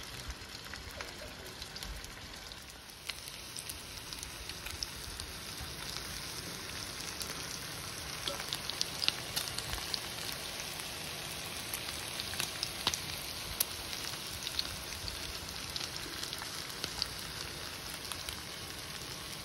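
Marinated chicken tikka pieces sizzling as they shallow-fry in a few tablespoons of oil in a frying pan: a steady hiss with scattered crackles and pops, growing slightly louder as the underside browns.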